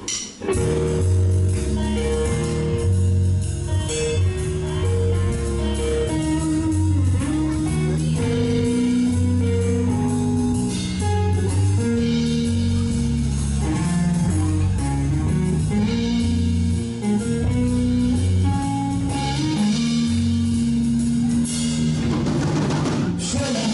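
Blues band playing live without vocals: electric guitar and electric bass over a drum kit, a steady, loud band sound.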